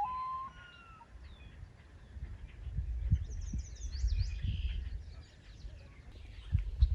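Small birds chirping and whistling in short, scattered calls, with a brief run of high chirps about three seconds in, over low rumbling noise.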